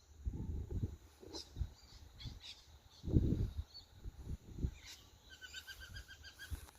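A bird calling: a few brief high chirps, then near the end a quick run of about ten short notes repeated at one pitch. Under it are irregular low rumbling thumps, loudest about three seconds in.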